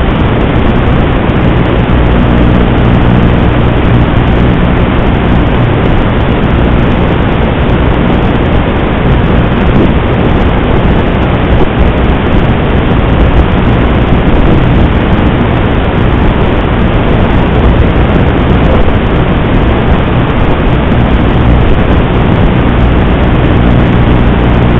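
Audio channel of an FPV racing drone's analog video feed: loud, steady rushing noise with a low hum underneath and no rise or fall in pitch.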